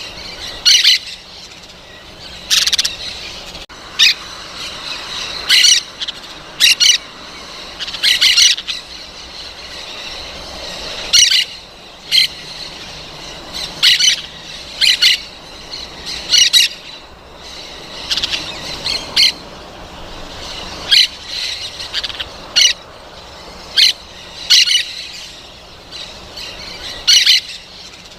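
Parrots squawking: short, loud, high-pitched calls repeated every second or two, over a softer background of bird chatter.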